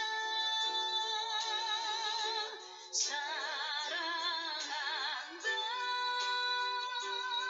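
Background music: a song with a woman singing long held notes with wide vibrato over a soft accompaniment, with a short break about three seconds in before the next phrase.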